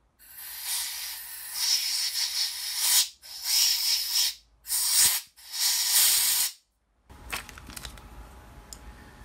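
Compressed-air blow gun hissing in four blasts of varying length, the first and longest nearly three seconds, blowing out a freshly chased threaded hole in a steel part.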